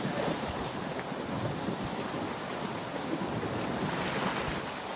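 Steady rushing outdoor background noise, like wind or surf, with no distinct events.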